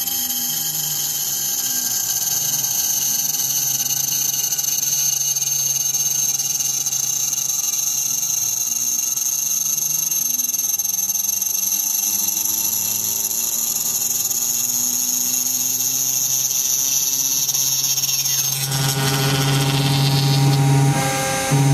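Aluminum-cutting CNC router running: a steady high spindle whine over lower motor tones that rise and fall. About three-quarters of the way through, the whine cuts off and a louder, steady low hum takes over, dropping out briefly near the end.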